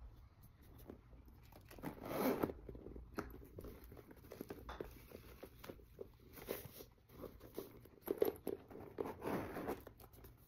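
Handling noises of a new camera bag being unzipped and turned over: the zipper running, tissue-paper stuffing rustling and crinkling, and light taps and clicks of the bag and its hardware, loudest about two seconds in and again near the end.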